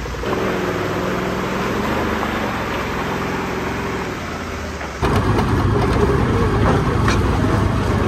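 Side-by-side UTV engine running steadily as the vehicle pulls away through a shallow creek crossing. About five seconds in it cuts to the louder engine and rattling knocks heard from inside the UTV's cab as it drives a dirt trail.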